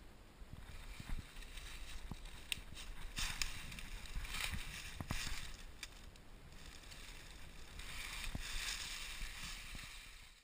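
Dry fallen leaves rustling and crunching close by as someone shifts and moves low through leaf litter, in two longer swells with scattered small snaps.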